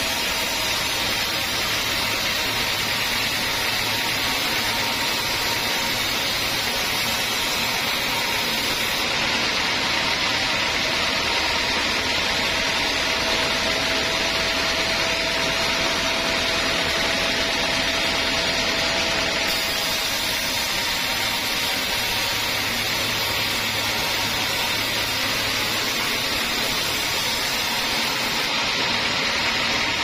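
Band sawmill running, its blade sawing through hard teak wood: a steady hissing machine noise with a low motor hum underneath.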